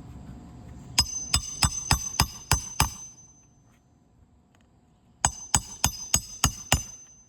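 Hammer driving roofing nails through a replacement asphalt shingle: about seven sharp ringing strikes at roughly three a second, a pause, then six more.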